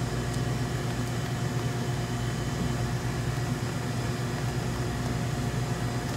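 Steady background hum of commercial kitchen machinery: a low drone with several fixed tones above it, unchanging throughout.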